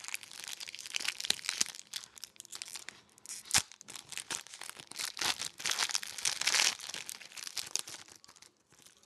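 Foil wrapper of a hockey card booster pack being torn open and crinkled by hand: a dense crackling full of small clicks, with one sharp snap a few seconds in. It is thickest about two-thirds of the way through and dies away near the end.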